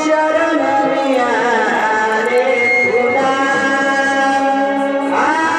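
A voice singing a gaulan, a traditional Konkan Naman folk-devotional song, over a steady held instrumental accompaniment. The sung line wavers and glides in pitch, entering about half a second in.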